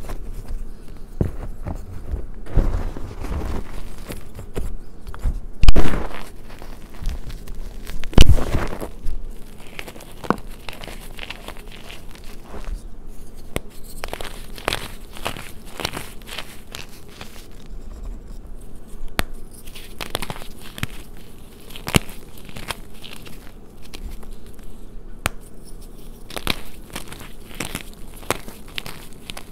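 Reformed gym chalk blocks crushed and crumbled by hand: dry crunching and crackling with many small snaps, two of them louder about six and eight seconds in.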